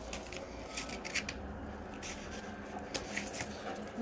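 Paper being handled and worked by hand: a few short, crisp paper sounds, grouped about a second in and again near three seconds.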